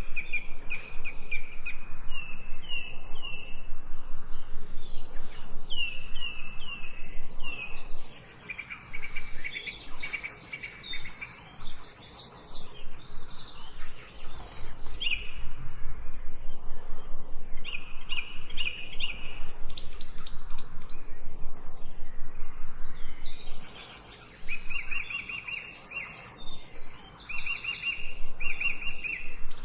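Several songbirds singing at once: repeated quick chirps, short rapid trills and whistled phrases overlapping, with a few brief lulls, over a faint steady low hum.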